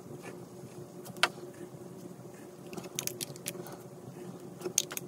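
Ohuhu marker tip rubbing and dabbing on colouring-book paper, with a few sharp ticks about a second in, several around three seconds, and a couple near the end, over a low steady hum.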